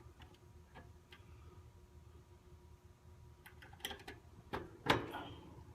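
Light clicks and taps of wires and spade connectors being worked onto the terminals of a hard start kit's relay. There are a few scattered clicks in the second half, the sharpest about five seconds in.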